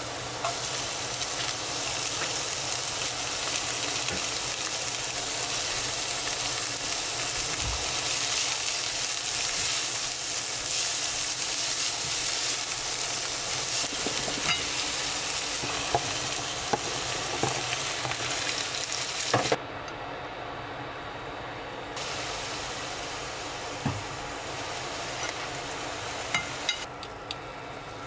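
Food sizzling and frying in a hot pan as it is stirred, with a few light knocks scattered through it. About twenty seconds in, the sizzle thins out abruptly, then carries on more quietly.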